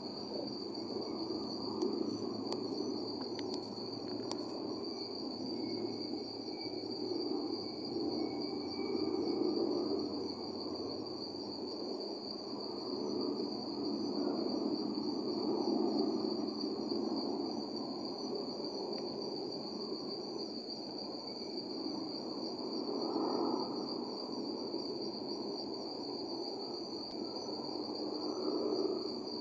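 Crickets trilling steadily in one continuous high-pitched note, over a steady low background hum of outdoor night noise.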